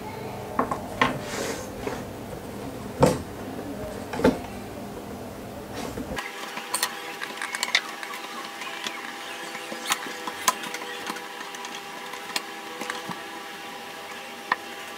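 Thin plywood puzzle pieces snapping free of their sheet and clicking and tapping as they are set down on a hard tabletop: a few sharp knocks in the first few seconds, then many lighter clicks.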